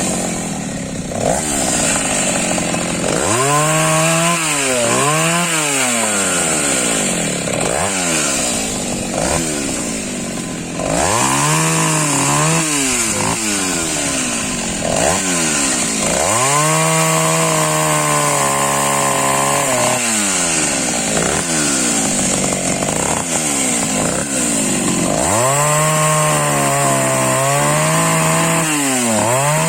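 Taiga 214 two-stroke chainsaw cutting firewood: the engine revs up and drops back again and again, and holds steady at full revs for a few seconds during the longer cuts.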